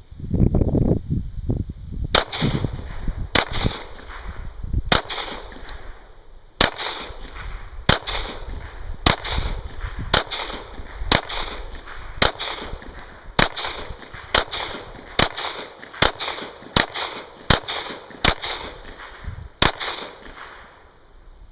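Two Glock pistols, a 9mm Glock 19 and a 10mm Auto Glock 20, fired one in each hand: about eighteen sharp shots at roughly one a second, each with a short echo. A low rumble of wind or handling comes before the first shot.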